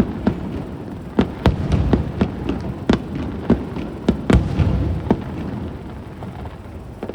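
Aerial fireworks shells bursting overhead: a rapid, irregular series of sharp bangs, thinning out over the last couple of seconds.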